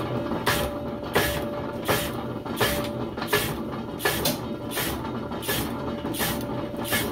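Peerless power hacksaw cutting a 1¼-inch ductile iron round with a 14 TPI blade. Each cutting stroke rasps through the bar, repeating evenly about once every 0.7 seconds over the steady run of the machine.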